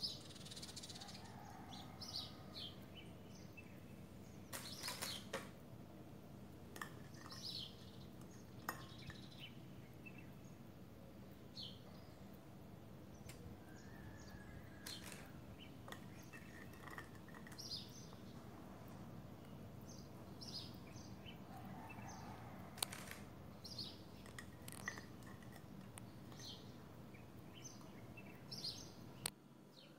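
Faint birds chirping in short scattered calls over a steady low background hum, with a few sharp clicks and knocks, the loudest about five seconds in and again near twenty-three seconds.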